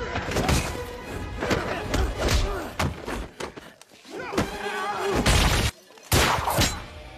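Dramatic trailer-style music punctuated by repeated heavy booming hits, with a brief drop-out a little before the end that is broken by another hit.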